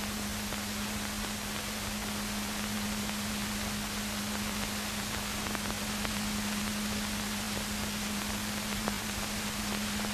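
Steady hiss with a low, even hum under it: the background noise of an old film soundtrack, with a couple of faint clicks in the second half.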